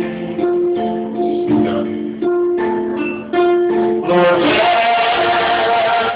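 A plucked string instrument picks out notes between sung lines of a worship song. About four seconds in, a voice comes back in singing "Lord" over it.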